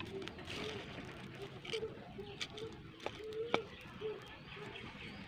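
A dove cooing in a run of short, low notes, with a few sharp clicks and snaps of sticks as a wood fire is fed in a clay stove; the loudest snap comes about three and a half seconds in.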